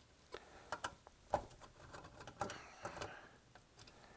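Phillips screwdriver backing small screws out of the metal subchassis of a Kenwood TS-440S transceiver: faint, irregular clicks and light scrapes, with a slightly louder knock about a second and a half in.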